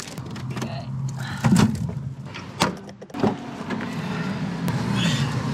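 Doors of a Citroën C1 hatchback being worked: three sharp thuds and clunks about a second and a half, two and a half and three seconds in, from the heavy tailgate being shut and the driver's door being opened. After them comes a steady low hum.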